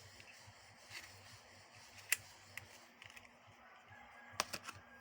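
A few light clicks and taps from handling the phone box and its packaging, over a quiet background, with a faint high steady tone starting near the end.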